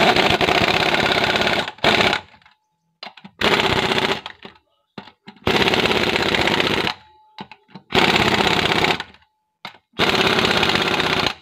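Impact wrench hammering on a wheel's lug nuts in repeated bursts of about a second or more, one per nut, with short pauses as it moves between nuts.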